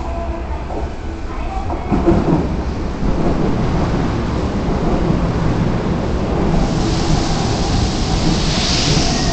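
Keikyu 1500-series electric train pulling in alongside the platform as it slows to stop, with a steady heavy rumble from the wheels and running gear. There is a knock about two seconds in, and a hiss comes in about two-thirds of the way through.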